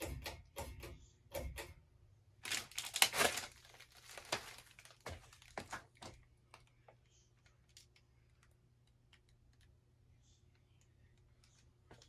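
A run of clicking and rattling handling noise over roughly the first six seconds. Under it and after it, a Casablanca Four Seasons III ceiling fan runs on medium speed in reverse with a faint, steady motor hum.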